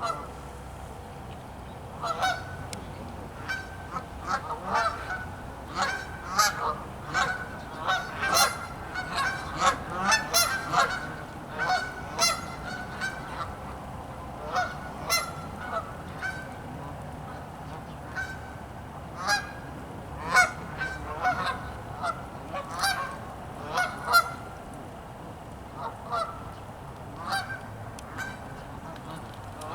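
Several Canada geese honking in a long run of short, repeated calls that often overlap. The calls come thickest through the middle and thin out near the end.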